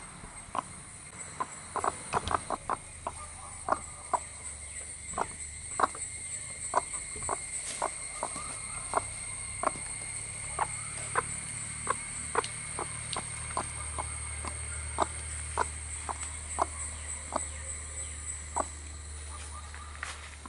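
Broody hen sitting on eggs, giving short soft clucks over and over, about one or two a second, over a steady high-pitched background whine.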